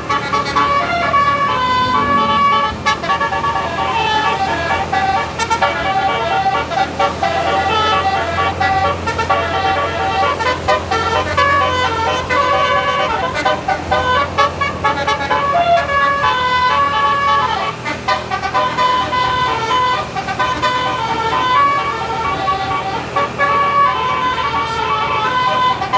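Bus basuri 'telolet' multi-tone horn playing a tune: a long run of short horn notes stepping up and down in pitch without a break, over a steady low hum.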